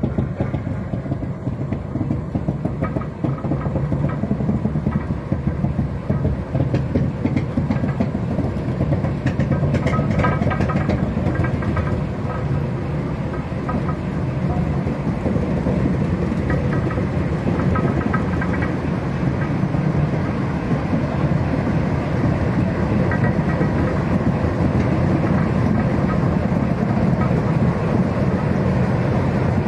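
Andrew Barclay diesel shunting locomotive running under load as it moves slowly, pushing another diesel shunter along the rails. A steady engine rumble, a little louder in the second half as the Barclay's cab comes alongside.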